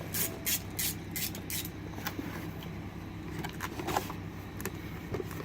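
Light clicks and rustling from brake pads and their packaging being handled, over a steady low hum.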